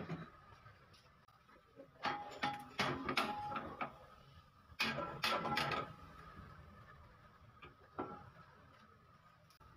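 Steel lower control arm of a Toyota Innova clanking and scraping against the frame and bed of a hydraulic shop press as it is handled and positioned. The metallic knocks come in two clusters, one about two seconds in and one about five seconds in, with a single knock near the end.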